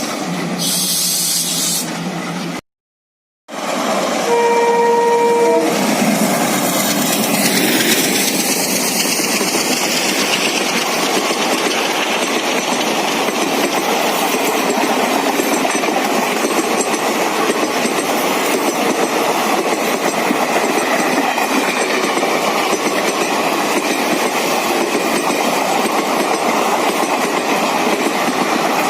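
Indian Railways ALCo diesel locomotive sounding its horn in one short blast about four seconds in, then passing close with its engine running and the train rumbling by, a loud, continuous noise.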